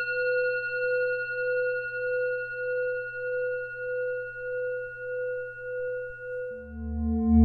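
A single long ringing tone, like a struck singing bowl, sustaining with a slow, even wobble and gradually fading. Near the end, deeper ringing tones come in and grow louder.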